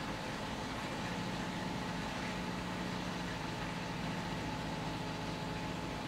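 Steady background hum with a hiss behind it, from a machine running in the room; a low hum tone sets in about a second in.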